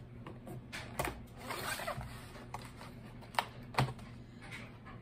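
Folding knife slitting packing tape on a cardboard box: scattered scrapes and a longer ripping rasp about one and a half seconds in, then two sharp clicks a little after the middle.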